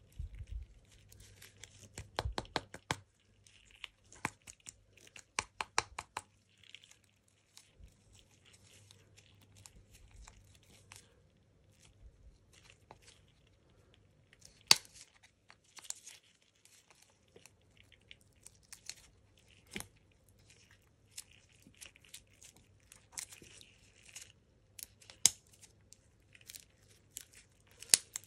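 A cooled hard-wax disc with glitter being bent, peeled and crushed in gloved fingers, crackling and crinkling with runs of quick clicks. Sharp single cracks come about 15 s and 25 s in, and again near the end.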